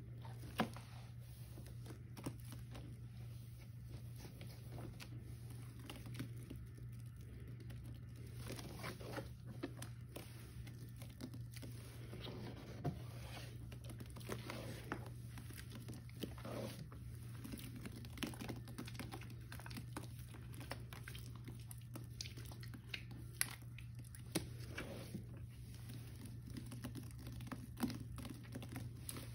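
Hands squeezing and kneading sponges soaked in thick Ajax cleanser paste: soft wet squishes with many small irregular pops and crackles, over a steady low hum.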